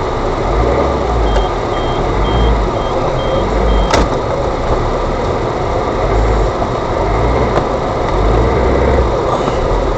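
A 4x4's engine running under load through deep mud, with a steady low rumble and tyre and body noise. A short run of high beeps, about two a second, sounds in the first few seconds, and there is one sharp knock about four seconds in.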